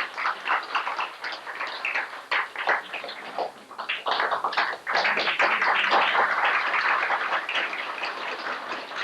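Audience applauding, the clapping thinning about three seconds in and swelling again a second or two later.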